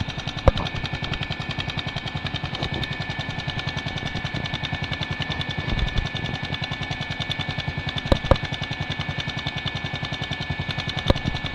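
ATV engine running at a steady low speed, its rapid even firing pulses giving a fast putt-putt, with a few sharp knocks on top, two of them close together near the end.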